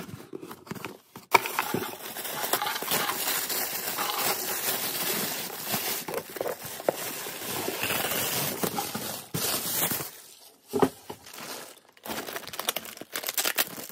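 Packaging crinkling and rustling as a box is unpacked by hand, with a sharp knock about a second in. It eases off briefly near the end, then picks up again.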